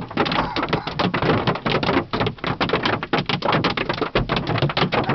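Golf-ball-sized hailstones pounding the roof and body of a car, heard from inside the car: a dense, irregular clatter of hard hits, many a second, the hail denting the car.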